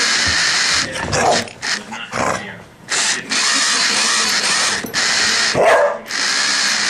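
Radio-controlled toy car's electric motor whirring in spurts, stopping and starting, with a dog barking about a second in and again near the end.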